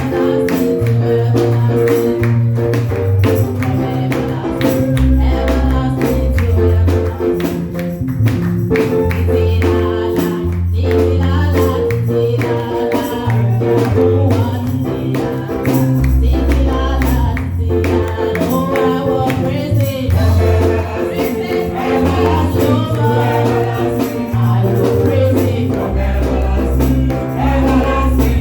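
Live gospel praise music from a church band: a bass line moving under sustained chords, with steady, evenly spaced percussion.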